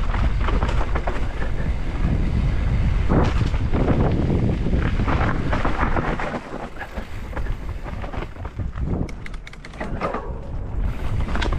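Wind buffeting the microphone over a low rumble of tyres on a dirt trail, with sharp knocks and rattles as the bike hits roots and bumps on a mountain bike descent. It gets somewhat quieter about six seconds in, with a cluster of quick knocks near the end.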